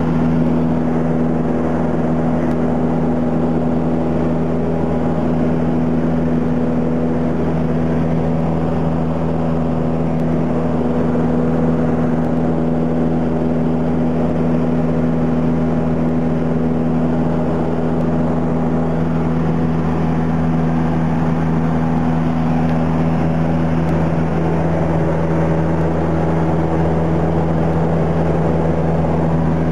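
Small single-engine light airplane's engine and propeller droning steadily in flight, heard from inside the cabin, with an unchanging pitch and level.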